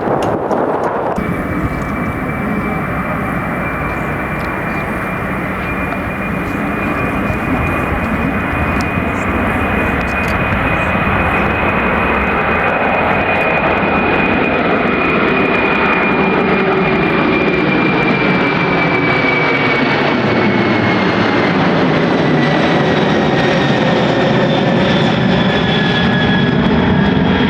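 Boeing 747 jet engines running loud as the airliner passes. A high whine sets in about a second in, holds steady, then falls in pitch over the last several seconds.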